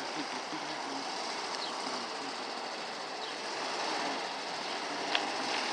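1973 VW bus's air-cooled flat-four engine idling with a steady, fast mechanical clatter, and a single sharp click about five seconds in.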